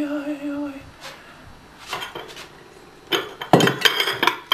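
Porcelain plates clinking and clattering as they are picked up and shifted on a table, a quick run of knocks and clinks starting about three seconds in, after a few faint clicks.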